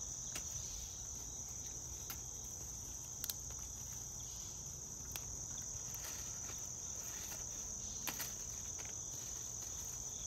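A steady, high-pitched chorus of insects, with a few light clicks scattered through it.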